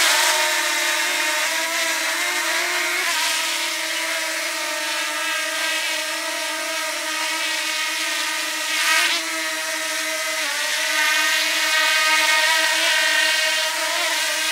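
DJI Mini 2 quadcopter's propellers whining steadily as it hovers low and flies off, the pitch dipping and shifting slightly a few times.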